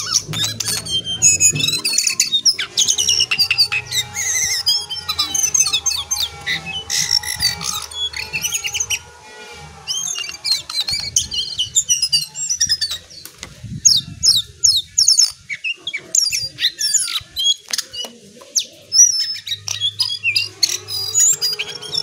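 A caged jongkangan (cingcoang coklat, the lesser shortwing) singing a fast, varied chattering song of sharp high notes and rapid trills. It goes almost without a break, pausing briefly a little before halfway.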